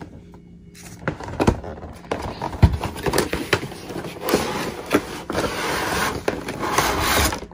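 A cardboard box being handled and a clear plastic clamshell tray slid out of it: scraping and rustling with scattered knocks, busiest over the second half.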